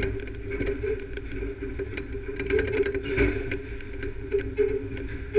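Electron beam irradiator line running with a steady machine hum, overlaid with irregular sharp ticks and snaps as the acrylic plate under the beam discharges its built-up charge. The loudest snaps come about three seconds in and just before the end.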